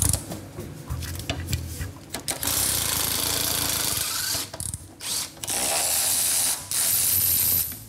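Cordless wrench driving a rusted strut-rod nut on a lower control arm, running in bursts: a long run starting a couple of seconds in, then two shorter runs near the end.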